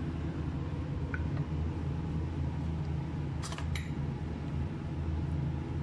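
A steady low hum runs throughout, with light clinks of a metal spoon against a ceramic plate and a wooden spoon about three and a half seconds in as a piece of cooked meat is pressed.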